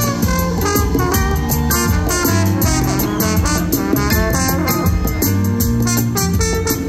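Live band playing an upbeat brass-and-rhythm tune, with a trombone carrying the lead line over a steady drum beat.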